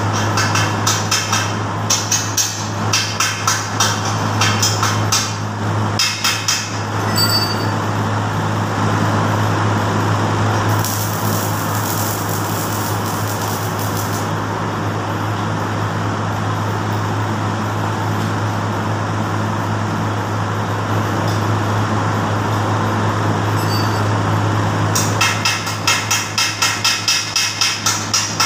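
Stick welding arc crackling and sizzling as an electrode is burned along the steel tube frame of a hand trolley, over a steady hum. The crackle is dense and choppy over the first several seconds and again near the end, and smoother in between.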